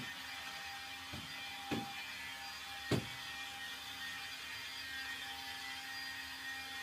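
Cordless stick vacuum cleaner running with a steady hum and whine as it is pushed over a floor mat. Three thumps sound about one, two and three seconds in, the last the loudest.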